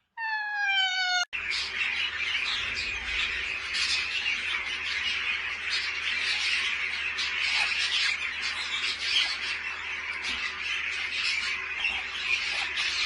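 A short pitched call, then many parrots squawking and chattering together in one continuous, dense din, as from a flock or a full aviary.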